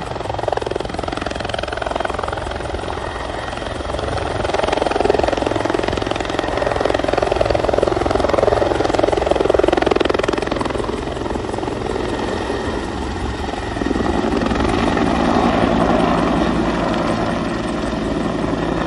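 Firefighting helicopter hovering low over a water tank with a water bucket slung beneath to fill it, then lifting away with the loaded bucket; steady rotor and turbine noise that swells midway and shifts in tone about two-thirds of the way through.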